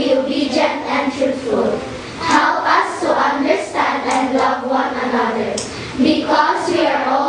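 A class of children's voices praying aloud together in unison, in a chant close to singing.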